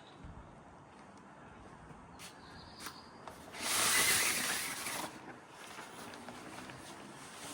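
A couple of light clicks, then a loud hissing rush lasting about a second and a half that tails off into a fainter hiss.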